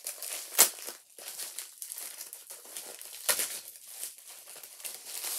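Plastic wrapping crinkled and torn open by hand, with two sharp louder crackles, about half a second in and again about three seconds in.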